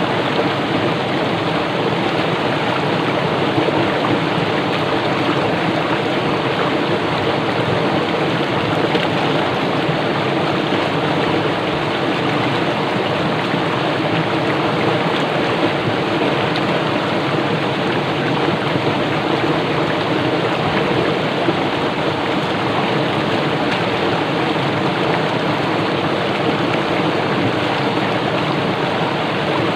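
A small stream running fast over rocks: a steady, unbroken rush of water.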